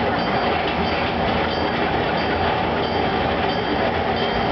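Recorded steam train sound effect played over a theatre sound system: a steady running-train noise with a rhythmic chugging of about two beats a second.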